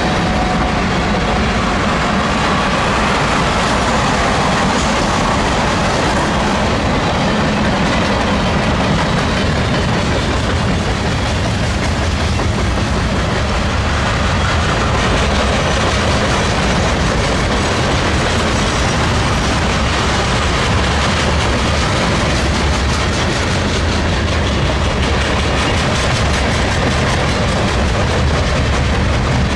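A train rolling past, a steady heavy rumble with the clatter of its wheels on the rails throughout.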